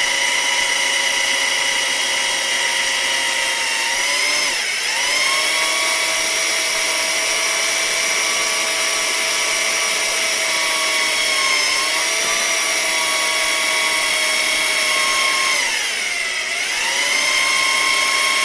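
Electric drill motor running continuously with a steady high whine. Its pitch sags as the motor slows, about four and a half seconds in and again near sixteen seconds, each time coming back up, and the sound cuts off suddenly at the end.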